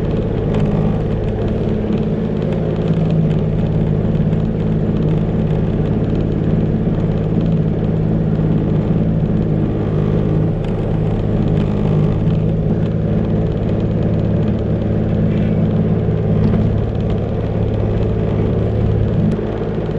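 Sea-Doo Fish Pro jet ski engine running steadily at low trolling speed, its note dropping slightly near the end.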